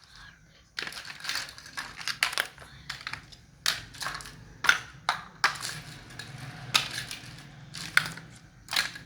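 Plastic toy packaging and toy pieces being handled and unwrapped: irregular crinkling and crackling with scattered sharp plastic clicks, a few louder ones in the second half.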